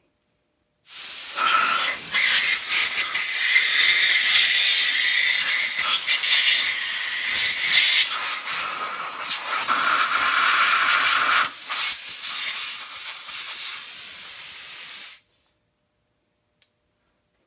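Compressed-air blow gun hissing in one long blast of about fourteen seconds, blowing gasket shavings out of an engine's thermostat housing opening. The hiss changes in pitch and strength as the nozzle moves, then cuts off suddenly.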